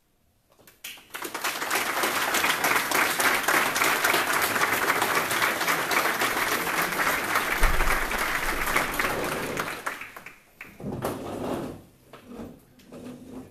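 Audience applauding, the clapping rising in about a second and dying away about ten seconds in.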